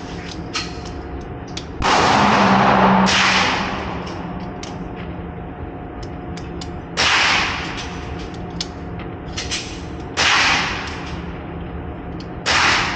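Gunshots: five loud reports, two in quick succession about two seconds in, then single shots at roughly three-second intervals, each trailing off in a short echo, with a few faint sharp cracks between them.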